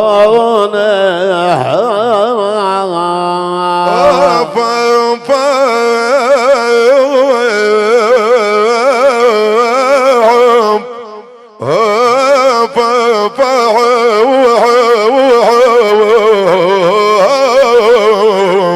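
Instrumental interlude of Middle Eastern folk music: a loud lead melody with fast trills and bends over a steady sustained drone. It breaks off for a moment about eleven seconds in, then resumes.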